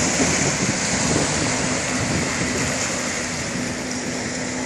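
Wind and surf noise under the distant, steady drone of a Yamaha VX110 Sport WaveRunner's four-stroke engine running offshore. The engine tone settles in and holds steady from about a second and a half in.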